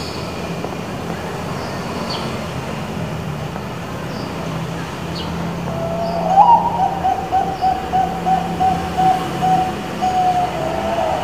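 Zebra dove (Thai-bred perkutut bangkok) singing its cooing song. About six seconds in it gives a rising opening note, then a quick run of short coos, about three a second, and ends on a longer held note. A steady low hum runs underneath.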